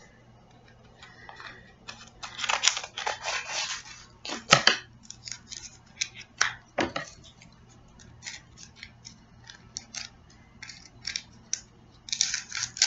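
Handheld scissors snipping and clicking at packaging, with rustling as it is handled. There is a rustle early on, a few sharp snips, then a run of small clicks, and a louder rustle near the end.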